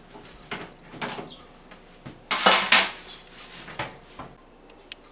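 Parts of a kitchen exhaust fan being handled during cleaning, clattering in a string of short knocks, with the loudest, longest clatter about two and a half seconds in and one sharp click near the end.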